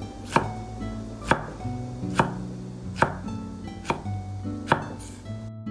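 A kitchen knife chopping napa cabbage kimchi on a wooden cutting board: six sharp, evenly spaced chops a little under a second apart, over soft background music.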